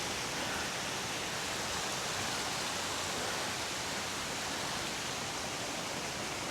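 Steady rushing of Thi Lo Su Waterfall, water pouring over the rock tiers.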